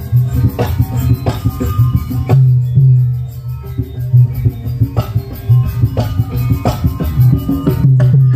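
Music with heavy bass and a steady drum beat played loud through a large line-array sound system driven by Ashley power amplifiers, run as a sound check.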